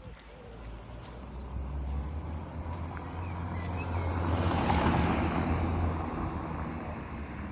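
A motor engine humming, growing louder to a peak about five seconds in and then fading, like a vehicle passing by.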